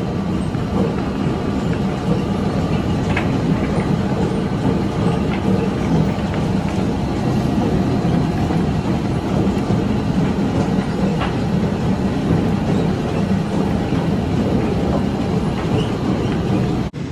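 Potato roller sorting table running: turning rollers carry potatoes that tumble and knock against each other in a steady low rattle with scattered light knocks.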